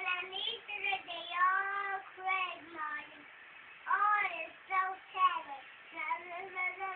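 A young girl singing unaccompanied in a high child's voice, with held, gliding notes in short phrases broken by brief pauses.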